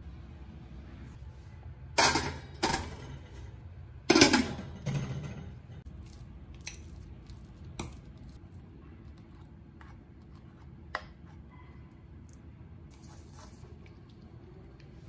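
Kitchen food-prep sounds: a knife cutting kabocha squash on a plastic cutting board, with several loud knocks and clatters about two to five seconds in, then quieter scattered clicks of a fork mashing cooked squash in a bowl.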